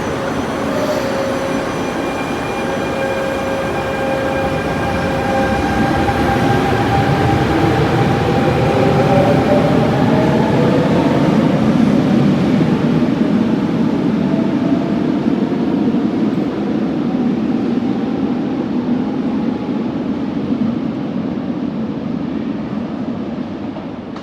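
MI09 RER A electric train pulling away: steady electrical tones at first, then a whine that rises in pitch over a few seconds as it gathers speed, over a growing rumble of wheels on rail that fades slightly near the end. The departure noise is unusual for this train.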